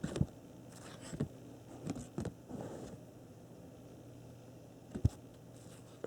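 1987 Topps baseball cards being handled and sorted: a few scattered soft clicks and taps of cardboard, the sharpest one about five seconds in, over a faint steady low hum.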